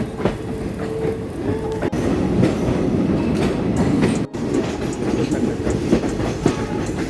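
Passenger train running on the rails: a steady rumble with wheels clacking over the rail joints, and a short steady whine in the first two seconds. The sound drops out for a moment just past halfway.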